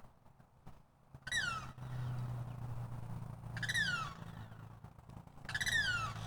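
A bird calls three times, roughly two seconds apart, each call a short falling whistle. A low steady hum sets in about a second in.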